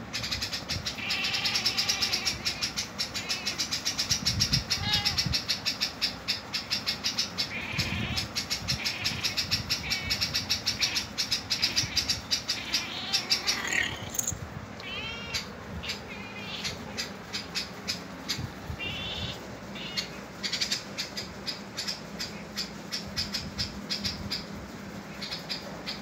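Fast, high-pitched bird-like chirping and twittering, dense and loud for the first half, then sparser after about fourteen seconds with a few short falling chirps.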